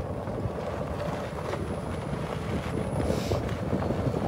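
A cart driving along a grassy track, a steady rumble of the ride with wind buffeting the microphone.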